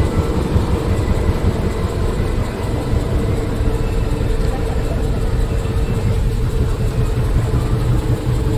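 Heavy truck's diesel engine running steadily at low revs, a deep, even rumble that holds without revving.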